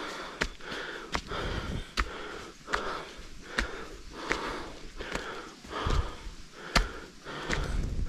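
A person panting hard from the exertion of climbing steps, with rhythmic, breathy in-and-out breaths. A sharp tap of a footfall lands about every 0.8 s.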